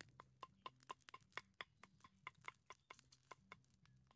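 Small open wood fire crackling: faint, sharp, irregular pops, several a second.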